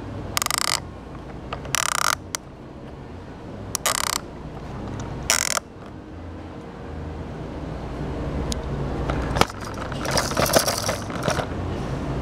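Plastic peek-a-boo slider of a Fisher-Price activity tree house toy pushed along its track, giving four short mechanical rattles spread over the first six seconds. Near the end, small plastic beads rattle inside the toy's clear roller.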